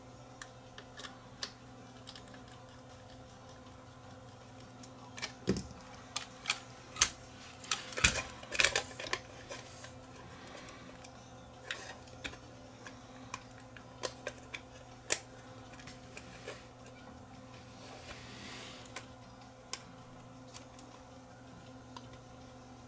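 Irregular light clicks and taps of small plastic and metal parts and hand tools being handled on a DAT tape-deck mechanism, thickest about five to nine seconds in, over a faint steady mains hum.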